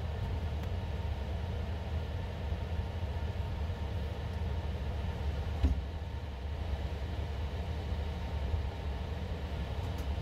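Steady low rumble with a light hiss from a laboratory fume hood's ventilation, with a sharp click about six seconds in.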